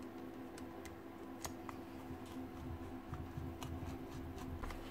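Faint scattered clicks of a screwdriver and small metal screws as they are started into the gearbox housing of a Hilti TE905 demolition hammer, located but not yet tightened, over a steady low hum.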